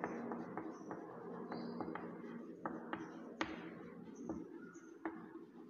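Chalk tapping and scratching on a blackboard as words are written, with a few short high squeaks from the chalk.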